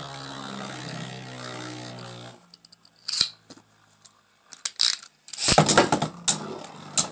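Beyblade spinning tops (Turbo Achilles and Wonder Valtriac) in a plastic Beyblade stadium: a steady humming spin that cuts off about two seconds in, then sharp clicks. About five and a half seconds in comes a loud burst of clacking and clattering as the tops collide and one bursts apart, Turbo Achilles scoring a burst finish.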